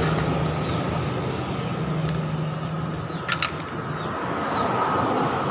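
Steady engine-like drone, with one sharp metallic clink about three seconds in as the scooter's rear clutch and driven pulley assembly is slid off its CVT shaft.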